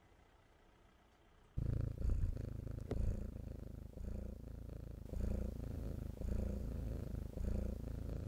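Domestic cat purring close by, a low rumble that swells and fades about once a second, starting about one and a half seconds in.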